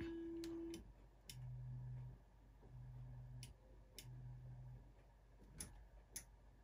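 LowRider v3 CNC stepper motors during a home-all cycle, faint: a steady whine cuts off under a second in, followed by three short low hums, each under a second, as the axes seek and back off their end stops. Several sharp clicks are scattered through it.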